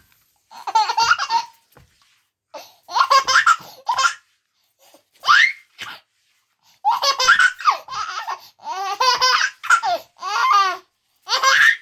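A baby laughing in a string of short, high-pitched bouts with brief pauses between them.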